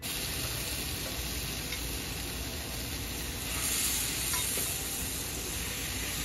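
Hariyali-marinated chicken and tilapia fillets sizzling steadily on the hot, oiled grate of a propane gas grill. The sizzle grows a little louder for a moment about halfway through.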